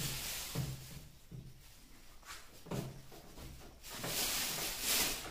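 A hand wiping and rubbing over the painted surface of a gypsum board wall panel: a few light knocks and taps, with a longer brushing hiss about four seconds in.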